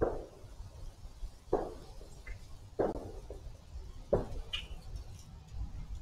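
A dog barking four times in a steady series, about one bark every second and a half.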